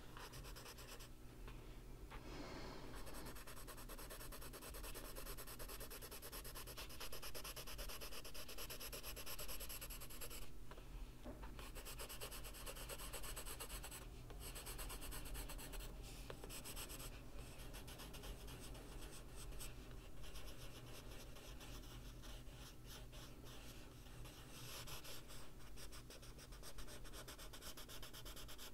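Faber-Castell Polychromos colored pencil scratching over coloring-book paper in quick, continuous shading strokes, with a few short pauses.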